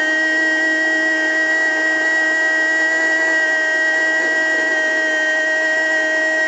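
A radio football commentator holding the goal cry, one long unbroken "gol" on a single steady high note.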